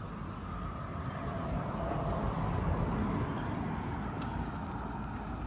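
Outdoor ambience with a low rumble of a vehicle passing by, swelling to its loudest about halfway through and then fading.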